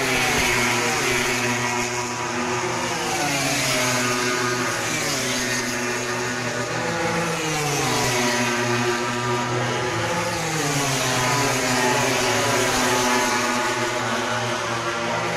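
MotoGP racing motorcycles, 1000 cc four-stroke four-cylinder prototypes, screaming past on the track one after another. Their engine notes rise and fall in pitch every few seconds as each bike goes by and shifts gear, with several engines often heard at once.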